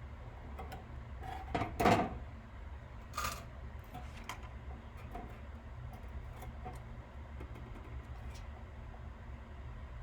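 A few light knocks and clicks of tools and parts being handled at a soldering bench, the loudest about two seconds in, over a steady low hum.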